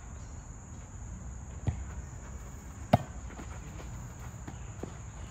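Volleyball being struck twice, just over a second apart, the second smack louder, followed by a few lighter knocks. A steady high chirring of crickets runs underneath.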